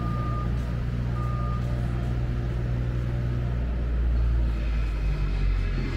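A heavy vehicle's engine running low and steady, with a reversing-alarm style beep sounding twice in the first two seconds.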